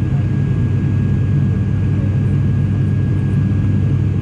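Airliner in flight heard from inside the cabin: a steady, unchanging engine drone and deep rumble, with a thin constant high tone over it.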